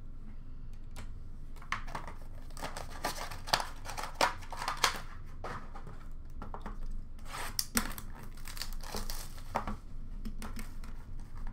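Trading-card boxes and their plastic wrapping being handled: irregular crinkling, rustling and light knocks of cardboard and plastic, heaviest a few seconds in and again just past the middle.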